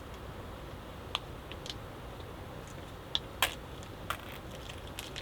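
A few light, scattered clicks and taps from cooking gear and packaging being handled while a takoyaki meal kit is set out, over a low steady background rumble.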